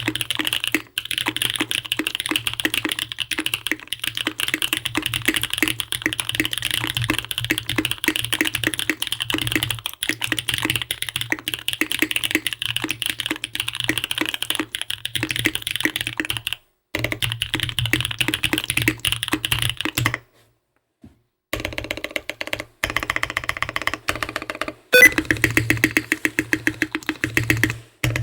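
Custom mechanical keyboard being typed on quickly, a Bias R1 with a POM plate, frankenswitches with Cherry housings and Husky stems, and GMK keycaps, giving a dense stream of keystroke clacks that the builder likens to long-pole switches. The typing stops for about a second, two-thirds of the way through, then resumes, with louder, more widely spaced keystrokes near the end.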